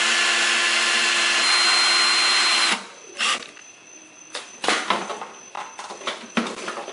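Cordless power driver running steadily for nearly three seconds, driving a screw through the rubber stair tread into the mower wheel, then cutting off. Short clicks and knocks of the tool and hands on the wheel follow.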